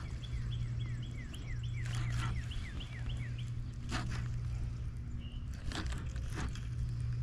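A bird calling a quick run of short falling chirps for the first three seconds or so, over a steady low hum, with a few scattered clicks and rustles.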